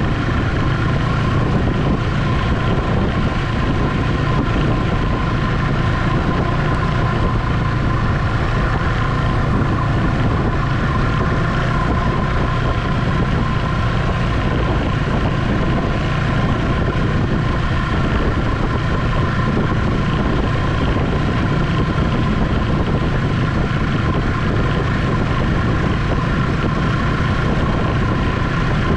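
Ski-Doo Expedition SE snowmobile running at a steady cruising speed, heard from on board, a steady whine above a low rumble that holds unchanged throughout.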